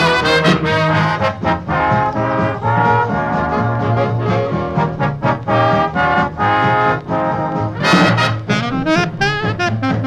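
Instrumental big-band swing music led by brass, trombones and trumpets, over a held bass line and a regular beat.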